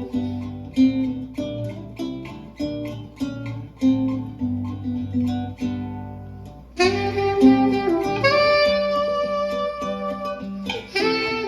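Guitar and saxophone playing together: picked guitar notes carry the tune at first, then the saxophone comes in with long held notes about seven seconds in.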